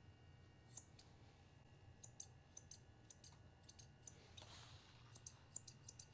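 Faint, scattered snips and clicks of curved grooming shears trimming a small dog's ear hair, over a low room hum.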